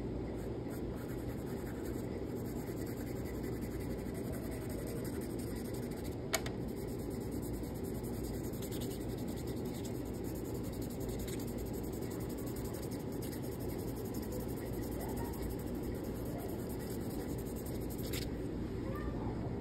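Chalk pastel scratching across paper and fingertips rubbing the powdery pastel into it, over a steady low room noise, with one sharp click about six seconds in.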